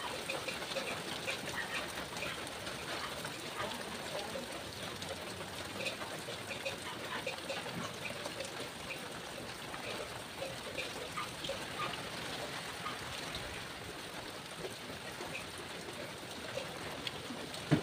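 Steady trickle and patter of water, with small drips throughout, and a single sharp knock near the end.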